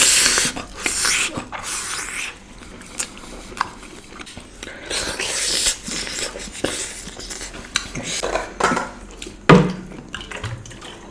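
Cutlery clinking and scraping against a dish, with close-miked eating sounds: short scrapes near the start and midway, scattered clicks, and one louder knock near the end.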